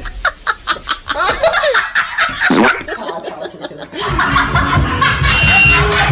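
A dubbed comic voice snickering and chuckling in short bursts. About four seconds in, background music with a steady beat starts.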